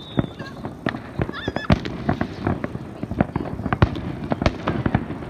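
Fireworks display: a dense, irregular string of sharp bangs and cracks from shells bursting overhead.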